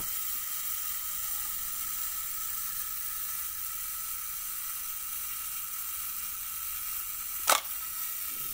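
Zenit TTL SLR's clockwork self-timer running down with a steady buzzing whir. About seven and a half seconds in, a single sharp click of the shutter firing, and the whir carries on after it.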